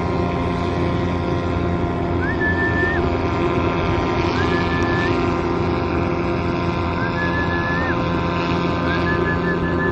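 Steady, many-toned drone of Balinese kite hummers (guangan) humming in the wind, with several short high whistles, coming closer together near the end.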